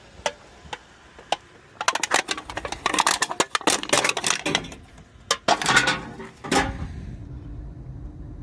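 Footsteps on a rocky, gravelly trail: a few single clicks, then dense runs of sharp crunching clicks. A low steady rumble starts near the end.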